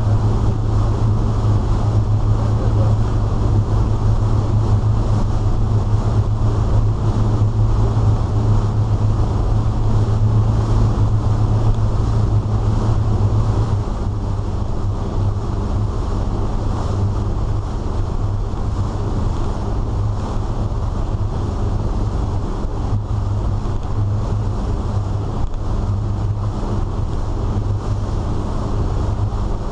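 Inboard engines of a 34-foot Sea Ray cruiser running under way in rough water, a steady low drone mixed with the rush of wind and water, heard from the helm inside the canvas enclosure. The drone eases slightly about halfway through.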